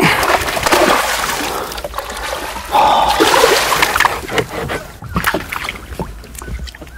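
A hooked fish thrashing and splashing at the water's surface beside a boat. The splashing is loudest in the first second and again about three seconds in.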